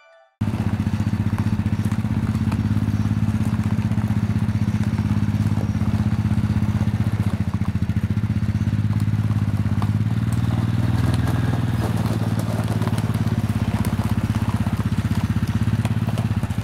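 ATV (four-wheeler) engine running steadily with a rapid, even pulsing beat, starting abruptly about half a second in.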